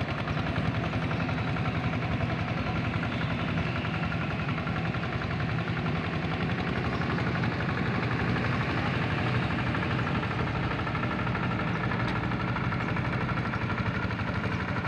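Hand tractor's diesel engine running steadily with a fast, even chugging.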